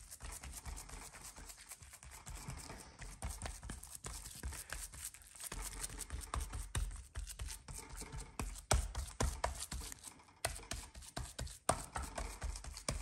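Fingertips pressing and patting minced meat into a thin sheet of raw beef: irregular soft wet pats and small taps.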